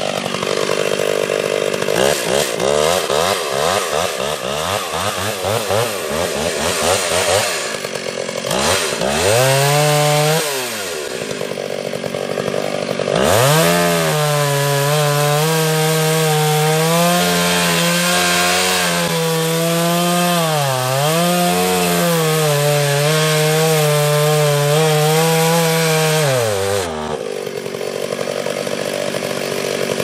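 Two-stroke gas chainsaw sawing into a tree. Its revs rise and fall for the first ten or so seconds. It is then held at full throttle for about thirteen seconds, with the pitch dipping briefly twice under load, before dropping back near the end.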